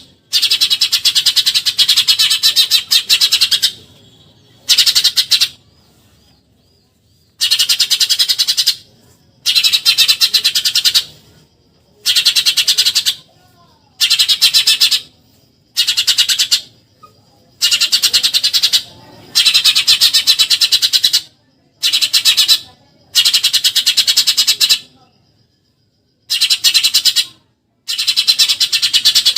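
Eurasian tree sparrow giving rapid chattering 'tembakan nyerecet' calls in about a dozen bursts of one to three seconds each, with short pauses between.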